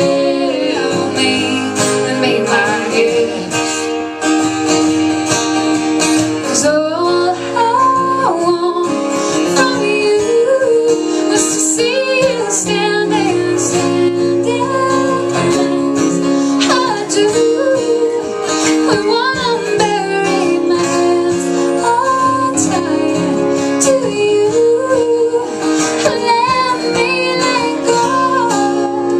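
Woman singing a country song with acoustic guitar accompaniment.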